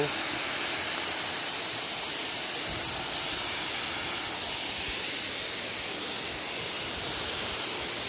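Waterfall pouring into a rock pool: a steady, even rushing hiss of falling water.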